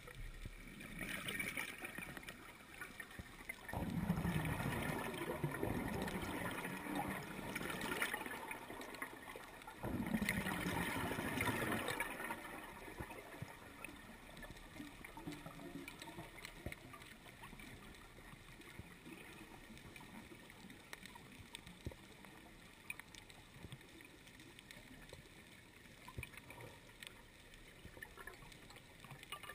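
Underwater bubbling from a rebreather diver's vented breathing gas: two loud bubbling bursts, about four seconds in and again about ten seconds in, then a low steady water hiss with faint scattered clicks.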